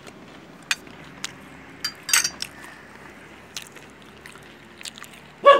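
Scattered light clicks and taps over a steady background hiss, with a short, louder pitched sound near the end.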